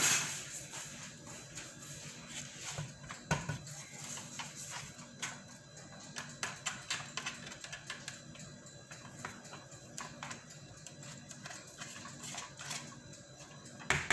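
Irregular small clicks and taps as gloved hands handle an electric hand mixer over a plastic mixing bowl, wiping batter off its beaters, with a louder knock near the end.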